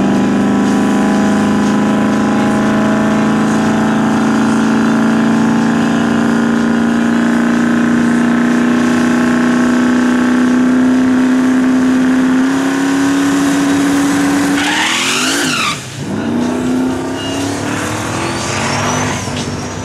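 Drag-racing Pontiac Firebird's engine held at a steady high rpm on the starting line, its pitch creeping slightly upward, for about fifteen seconds. Then the car launches: the engine note rises sharply, drops at a gear change about a second later and climbs again as the car pulls away down the track.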